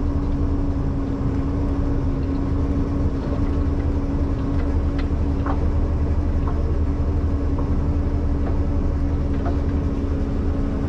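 Ponsse Buffalo forwarder's diesel engine running steadily, heard inside the cab as an even drone with a constant hum, with a few faint clicks and knocks.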